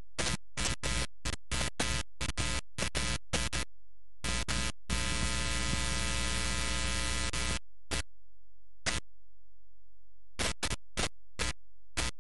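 Background music breaking up into many short fragments separated by dropouts, with one unbroken stretch of about three seconds in the middle.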